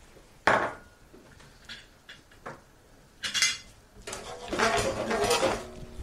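Metal utensil knocking and scraping against a pan: one sharp knock about half a second in, a few light clicks, then a stretch of clinking and scraping near the end as the grated parmesan goes into the pan of pasta.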